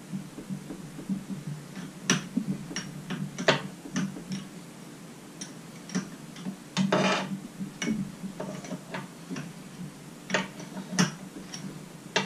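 Irregular metallic clicks and taps of a hand wrench working bolts loose on an outboard engine's powerhead, with a slightly longer clatter about seven seconds in.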